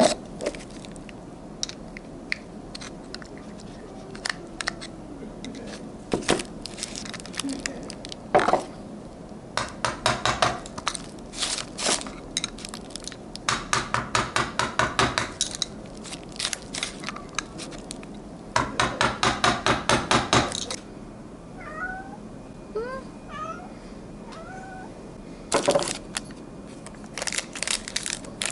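Rapid, evenly spaced clicking in bursts of one to two seconds, with scattered single clicks between them, from hand tools working on a motorcycle starter motor. A few short rising chirps come a little after the middle.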